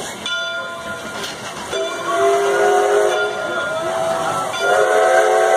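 Steam whistle of Canadian Pacific 2-8-0 locomotive 3716 blowing two long blasts, a chord of several steady tones, the first beginning a little under two seconds in and the second starting near the end. Two long blasts is the standard railway signal that the train is about to move forward.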